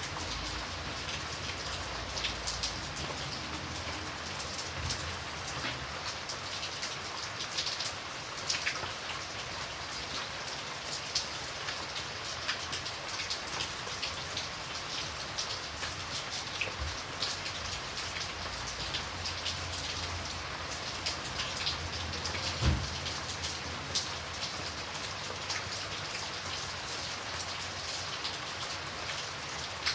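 Steady rain falling, with individual drops ticking sharply on a hard surface over an even hiss. A single dull thump comes near the end.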